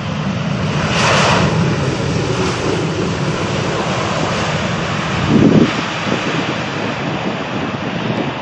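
Jet airliner engines rumbling steadily as an aircraft passes, with two brief louder bursts, one about a second in and one about five and a half seconds in.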